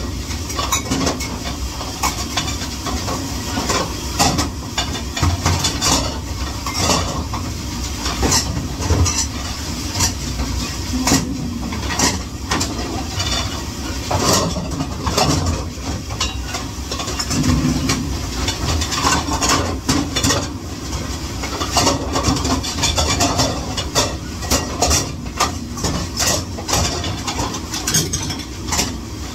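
Dishes and utensils clattering and knocking again and again over a steady hiss and rumble, as in commercial kitchen dishwashing.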